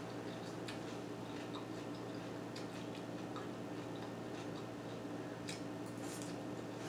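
Someone eating salad with a fork: scattered small clicks and crunches from the fork and from chewing. A steady low hum runs underneath.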